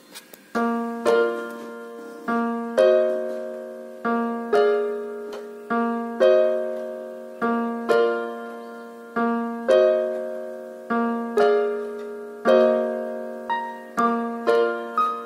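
Background piano music: a gentle repeating pattern of chords, each note ringing and fading after it is struck.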